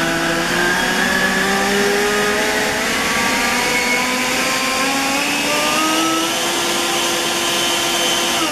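Harbor Freight Atlas 80V brushless cordless leaf blower running as its variable-speed trigger is squeezed gradually from light to heavy. A loud rush of air comes with a motor and fan whine rising steadily in pitch as it speeds up.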